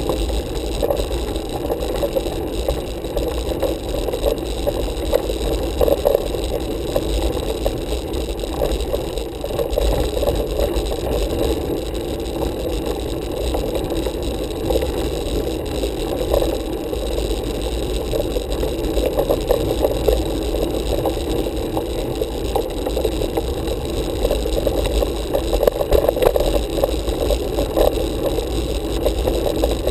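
Steady rumble and rattle from a road bike climbing, picked up by a handlebar-mounted camera: tyre noise off the tarmac and vibration through the bars, with many small rattles throughout.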